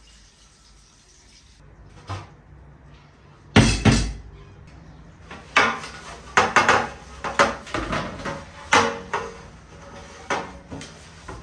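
Kitchen clatter of dishes and utensils being handled: two loud knocks about a third of the way in, then a run of sharp clinks and knocks in the second half.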